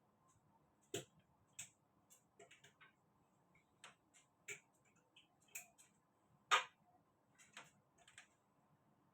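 Irregular light clicks and taps from work on a door being repaired, a dozen or so spread unevenly, with one sharper knock about six and a half seconds in.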